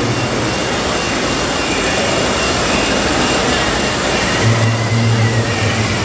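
Steady, loud mechanical noise with a low engine-like hum that drops away about a second in and comes back about four and a half seconds in. A faint wavering whine is heard over it in the last two seconds.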